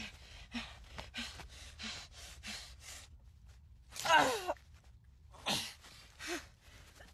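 A man breathing hard in quick, regular gasps, then one loud strained cry about four seconds in. A further gasp and a short groan follow.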